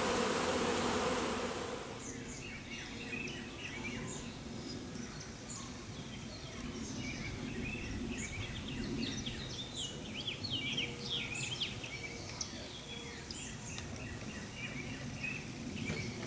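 Honeybees buzzing faintly around the hive under many small birds chirping. In the first couple of seconds a louder, even hiss cuts off suddenly.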